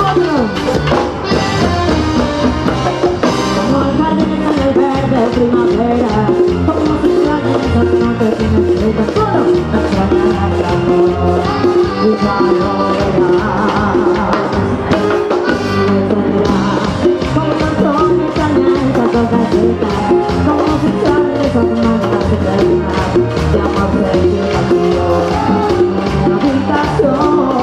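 Live band playing Latin dance music with a steady beat, loud through the venue's sound system; no clear sung lines.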